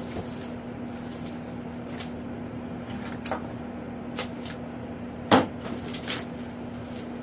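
Thin foam packing sheet being unwrapped from a foam model-airplane part, rustling with scattered short crackles, the loudest about five seconds in, over a steady low hum.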